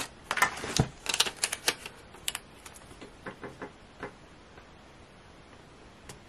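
Paper sticker sheets and planner pages being handled: a quick clatter of rustles and taps against the desk, then a few soft taps as fingers press a sticker strip onto the page, fading to quiet after about three seconds.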